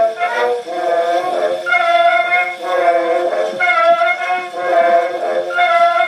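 Reginaphone playing a phonograph record: a melody of long held notes, like singing or a violin, thin and without bass, as from an acoustic horn phonograph.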